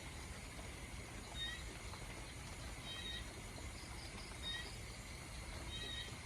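Steady rain falling, with a short, high animal call repeating evenly four times, about every one and a half seconds.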